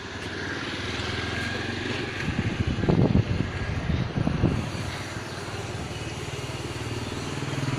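A small motor vehicle engine running nearby with a steady low hum, surging louder about two and a half to four and a half seconds in.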